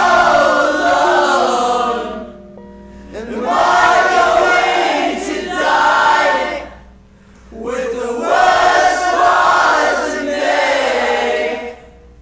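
Emo song's group vocals: several voices singing together in three long phrases with short breaks between them, dropping away just before the end.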